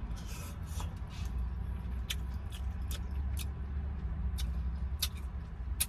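A person chewing a mouthful of ramen noodles with scattered wet mouth clicks, irregular and about a dozen of them, over a steady low rumble of the car they sit in.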